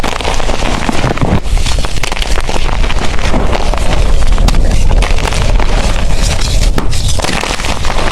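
Blocks of gym chalk being crushed and crumbled by hand: a continuous run of crunching and crackling with a low rumble underneath.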